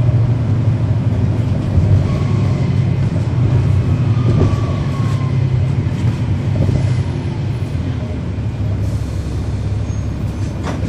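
Cummins ISL9 straight-six diesel of a 2011 NABI 416.15 transit bus, heard from the rear seats, running with a steady low drone. A faint whine falls in pitch a few seconds in, and the engine eases a little in loudness past the middle.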